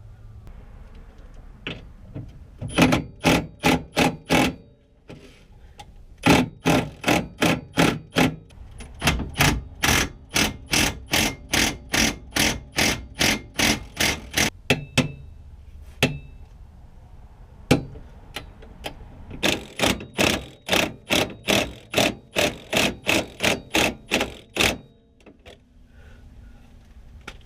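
Repeated hammer blows, about three to four strikes a second, in three runs with a few single blows between, the middle run the longest.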